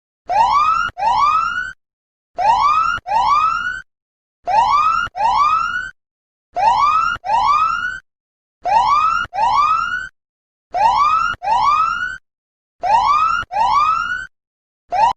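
Electronic siren-like whooping tone: two rising whoops at a time, each pair repeating about every two seconds, seven times over, with a new pair starting near the end.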